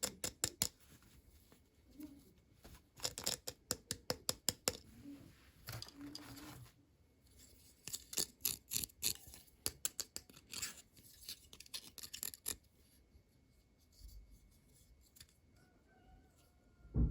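Hands handling and opening small toy packaging: clusters of light clicks, taps and scratchy rustles, with short quiet pauses between them.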